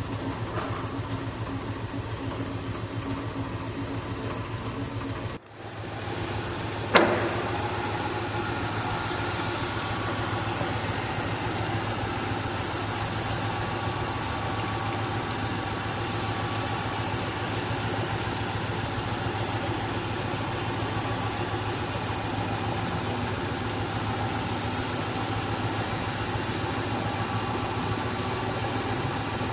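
Hardinge HLV-H toolroom lathe running under power with a steady hum, the spindle at 1400 RPM. About five seconds in the sound drops out for a moment. A sharp click follows about a second later, and the lathe runs on steadily with a slightly brighter tone.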